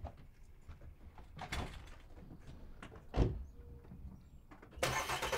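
Footsteps on pavement and a car door opened, then shut with a heavy thump about three seconds in. Near the end the car's engine starts.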